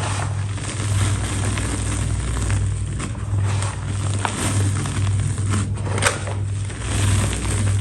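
A crisp, brittle material crumbling and snapping close to the microphone, a dense crackle with scattered sharp snaps, the loudest about six seconds in. A steady low hum swells and dips underneath.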